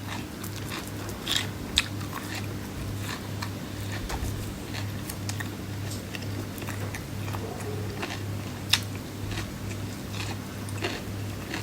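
A person biting and chewing crisp raw vegetables, with scattered crunches and clicks and one sharper crunch about nine seconds in, over a steady low hum.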